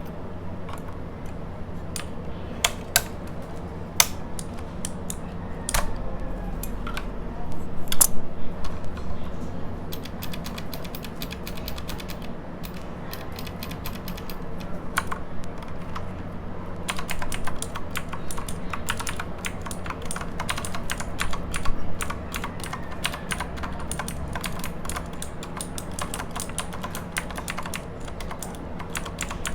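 Stock, unlubricated Outemu Blue clicky switches in a Redragon Mitra mechanical keyboard being pressed, very noisy. A few separate key presses come first, then rapid continuous typing from about ten seconds in, thickest in the second half.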